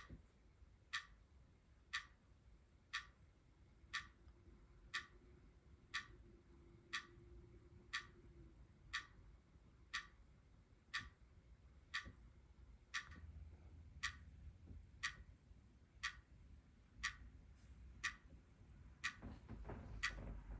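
A recording of a clock ticking, played through Creative Pebble V3 USB desktop speakers: crisp ticks, one every second, evenly spaced. Low handling rumble comes in near the end.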